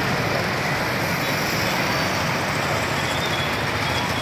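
Steady traffic noise from motorbikes and cars running along a busy city street.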